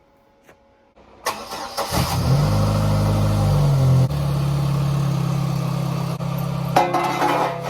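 Chevy Cavalier's 2.2-litre four-cylinder engine starting about a second in, running at a fast idle for a couple of seconds, then dropping to a steady idle about four seconds in.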